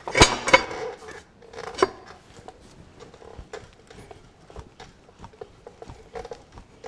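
Metal clanks and clinks from a grey Ferguson tractor's front kingpin being worked down out of its axle bushes. Two sharp clanks come in the first half second and another just under two seconds in, then light scattered ticks and rattles.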